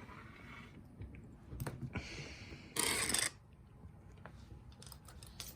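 Quiet handling of a lock and its picking tools: faint rubbing and light metallic clicks, with a short, louder rushing noise about three seconds in.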